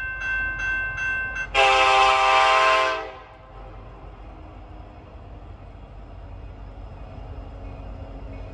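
A quick series of short ringing tones, then a train horn sounds a chord for about a second and a half and cuts off. A steady low rumble follows as the freight train approaches in the distance.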